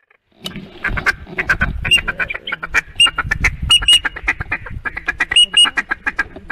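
Duck call blown in a fast feed chatter, with short quacks standing out every second or so, starting abruptly about half a second in, over a low rumble.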